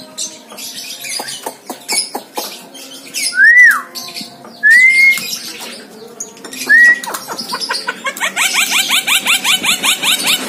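Javan myna calling: scattered clicks and short chattering notes, three loud whistled notes that swoop up and down, then a fast rattling run of short chirps over the last couple of seconds.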